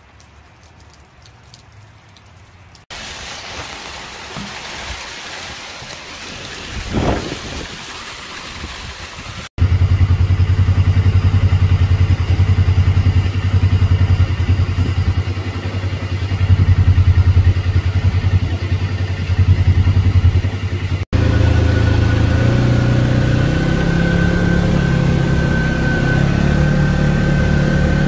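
Sleet falling with a steady hiss and a deep rumble of thunder about seven seconds in; then, after a cut, a vehicle engine running steadily, and near the end running with shifting pitch and a high, thin whine.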